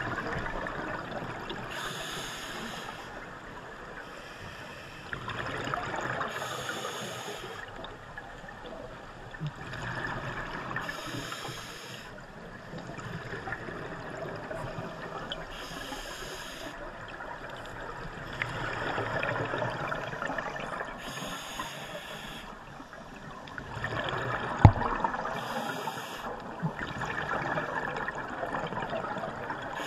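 Scuba diver breathing through a regulator underwater: a short hiss on each inhale about every four to five seconds, alternating with the rushing bubble noise of each exhale. One sharp knock late on.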